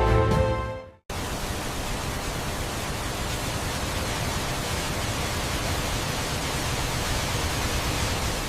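Background music ending about a second in, then the steady roar of a waterfall: an even rushing hiss with no pitch or rhythm, cut off abruptly near the end.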